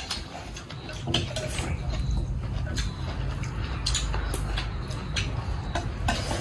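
People eating from bowls: spoons and chopsticks clicking against the bowls every second or so, over a low steady rumble.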